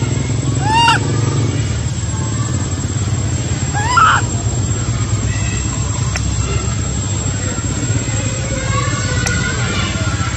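Baby macaque crying: two arched, rising-then-falling cries, about a second in and again about four seconds in, over a steady low rumble.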